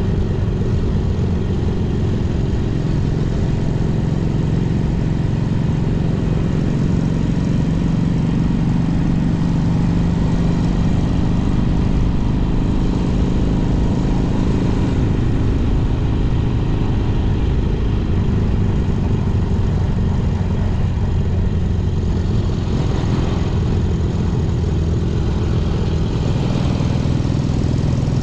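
Honda CA77 305 Dream's twin-cylinder four-stroke engine running under way, its note holding fairly steady, with a rush of wind and road noise.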